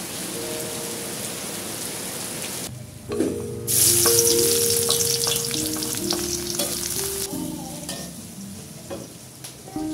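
Rain pattering on a flooded yard, then, a few seconds in, chopped shallots and garlic slide into hot oil in a wok and start sizzling loudly, the frying easing off gradually. Soft background music with a simple melody runs throughout.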